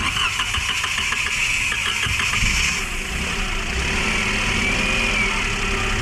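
Toyota Wigo's three-cylinder engine starting and running after a rebuild in which its bent connecting rods were replaced, with an even ticking over the first few seconds before it settles into steady running. This is the test run after the repair; the mechanic reckons the knock is solved.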